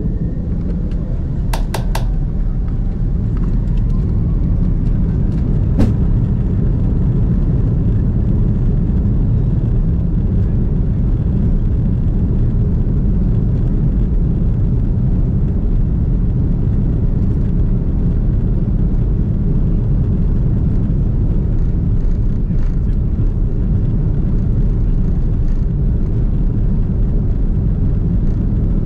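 Inside the cabin of an Airbus A340-600 on its takeoff run: the four Rolls-Royce Trent 500 engines spool up over the first few seconds with a faint rising whine. A loud, steady rumble of engines and wheels on the runway follows. A few sharp clicks come in the first seconds.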